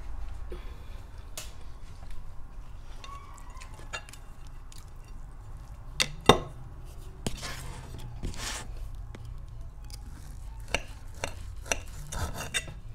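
Metal knife and fork clinking and scraping on a dinner plate as a steak is cut, with a sharp clink about six seconds in and a longer scraping stretch soon after.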